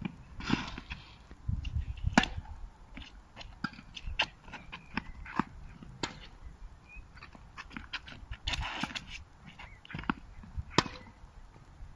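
Tennis ball struck by rackets and bouncing on a hard court during a rally: sharp pops, a few seconds apart, the loudest a little after two seconds in and near the end. Two short rough sounds, about half a second in and near the end of the third quarter, are heard between the hits.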